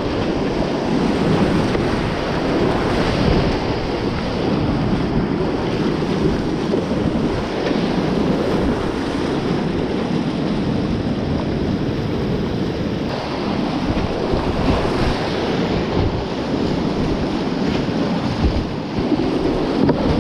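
Whitewater rapids rushing and splashing close around a kayak running them, a loud, steady wash of water.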